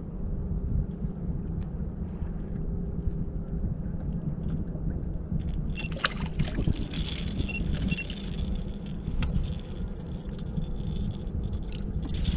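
Steady low rumble of wind and water around a small drifting fishing boat, with a few sharp clicks and knocks from about six seconds in.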